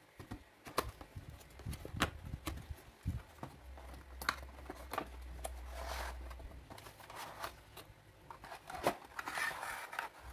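Cardboard hair-clipper box being handled, with a run of taps and knocks. The inner tray slides out of its sleeve with a rubbing rustle, and plastic packaging crinkles near the end.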